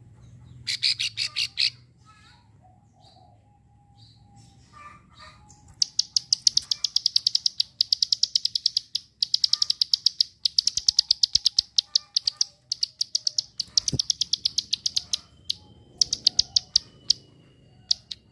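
Female plain prinia (prenjak sawah) giving its 'klik' call: rapid runs of dry, high clicking notes, about ten a second, in a short burst about a second in, then a long run through the middle with brief breaks and two shorter runs near the end.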